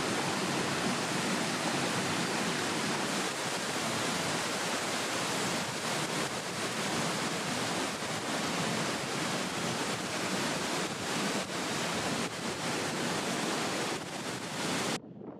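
Steady rushing of a waterfall close by inside a narrow rock gorge. It cuts off suddenly near the end.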